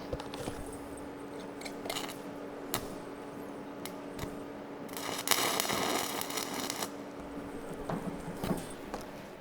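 Metal parts being handled and set up: scattered clicks and knocks over a steady shop hum, with a loud hiss about five seconds in that lasts about two seconds.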